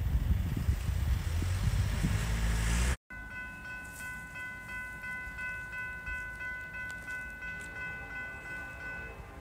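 Wind buffeting the microphone, then after a cut a distant train horn sounding one long chord of several notes held together for about six seconds.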